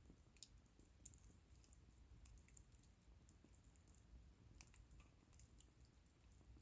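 Faint, irregular crackling and small pops of a wood bonfire, the sharpest pop about a second in, over a low, quiet rumble.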